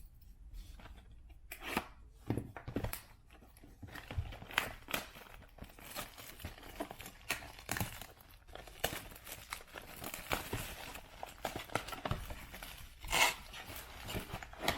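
A trading-card hobby box being torn open: plastic wrap and cardboard packaging crinkling and ripping in irregular crackles, with a louder rip near the end.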